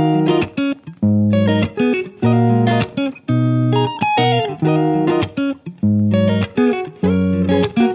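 Background music of a guitar playing plucked chords and notes in short phrases, with brief gaps between them.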